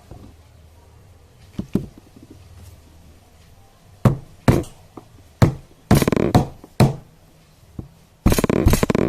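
Sharp kitchen knocks and taps, a few small ones and then a string of louder separate knocks about four seconds in, turning into a dense rapid clatter near the end.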